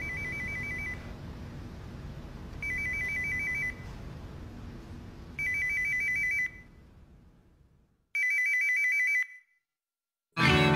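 A telephone ringing with a rapid trilling electronic ring, four rings about a second long each, spaced evenly. The background hum fades away before the last ring, and loud music cuts in abruptly at the very end.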